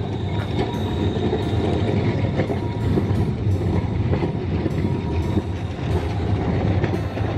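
Pesa Twist articulated low-floor tram rolling past close by through a curve. A continuous low rumble of wheels on rail runs under a steady high whine.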